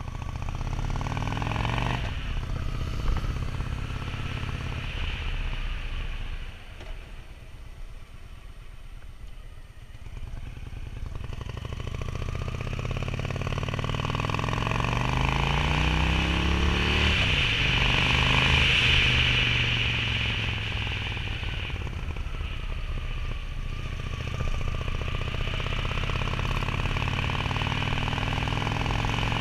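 Honda Shadow VT750's V-twin engine running under way, heard from the rider's seat. It eases off and goes quieter about a quarter of the way in, then pulls again with rising pitch and is loudest a little past halfway. The bike is running on freshly cleaned and rebuilt carburetors.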